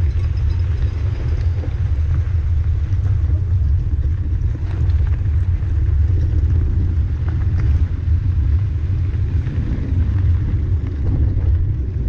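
Wind rumbling steadily on an action camera's microphone while riding a mountain bike over a gravel dirt road, with a faint hiss of tyre and trail noise and occasional light ticks.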